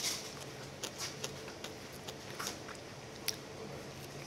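Someone eating strawberry ice cream from a plastic spoon: soft mouth and spoon clicks scattered through, over a faint low steady hum.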